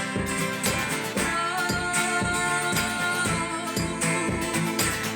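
Live acoustic music between sung lines: an instrument strummed in a steady rhythm, with one long held note through the middle.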